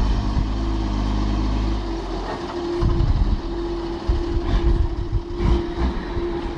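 Heavy vehicle engine running steadily, with irregular knocks and clatter from about two seconds in.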